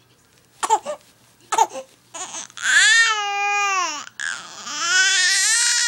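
Young baby crying: two short sobbing sounds in the first two seconds, then two long wailing cries, each rising and falling in pitch and lasting about two seconds.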